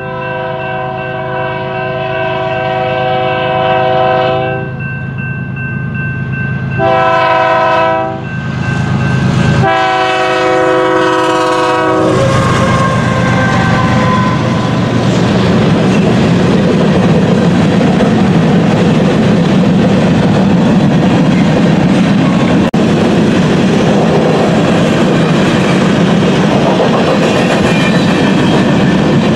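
BNSF freight train sounding its multi-chime air horn for a grade crossing: a long blast, a short one, then another long one, over the low drone of the diesel locomotives. From about twelve seconds in, the train passes close by and the horn gives way to the steady rumble and clatter of covered hopper cars' wheels on the rails.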